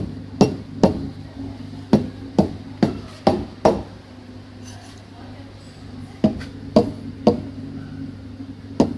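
A stainless steel milk pitcher of steamed milk rapped on the counter in about a dozen sharp knocks in groups of two and three, which settles the foam and pops large bubbles before pouring. A steady hum from the espresso machine runs underneath.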